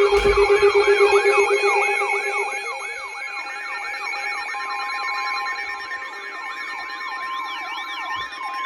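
Emergency alert alarm: several steady tones sounding together under a repeating siren-like swooping wail, about three sweeps a second, loudest in the first two seconds, with a higher wail joining in the second half.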